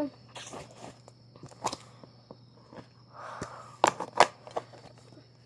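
Small plastic slime containers being handled: scattered light clicks and taps, a brief soft rustle about three seconds in, then two sharper clicks about four seconds in.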